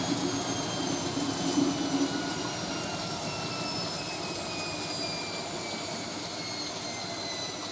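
Hoover A3060 Electronic 1100 washing machine's drum coasting down after a short spin between rinses, its motor whine falling steadily in pitch.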